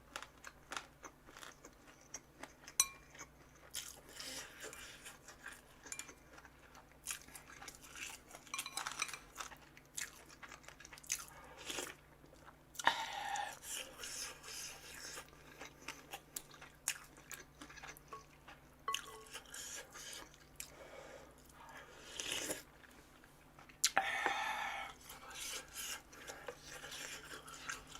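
Close-miked chewing of a bite of spicy chicken feet in a wrap: wet chewing with frequent crisp crunches and clicks, and two louder spells of crunching, a little before halfway and near the end.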